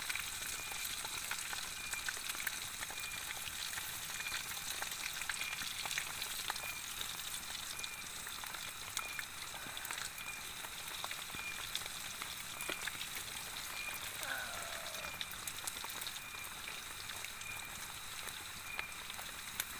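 Chicken pieces sizzling in hot oil in a steel pot, a steady crackling hiss, with light clicks and scrapes of a wooden spatula turning the pieces.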